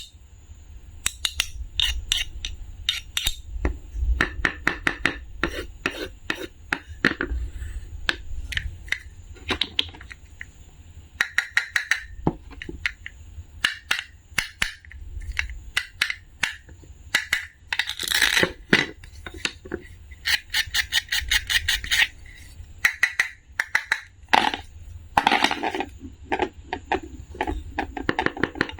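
Rapid clicking, tapping and scraping of small hard objects being handled, in quick irregular runs with short denser clusters, and a faint steady high whine underneath.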